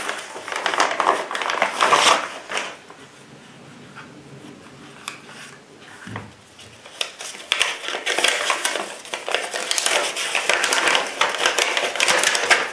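A molded plastic belt holster being taken out of its packaging and handled: rustling, crinkling and clicking of packaging and plastic. The handling is busy for the first couple of seconds, quieter for a few seconds with one low thump in the middle, then busy again.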